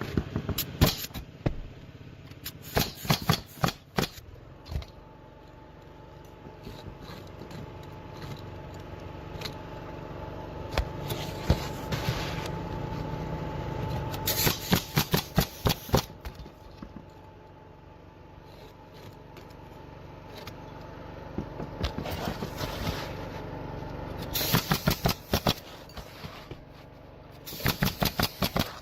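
Roofing construction work: bursts of sharp, rapid knocks, several a second, come in clusters, typical of nailing, over a steady mechanical hum.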